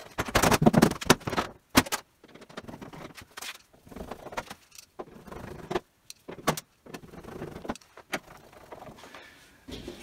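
Sheet-metal side panel of a tumble dryer scraping and rattling as it is slid back into place, with a sharp knock just under two seconds in. Then scattered clicks and scrapes as a screwdriver works at the back of the machine to fasten it.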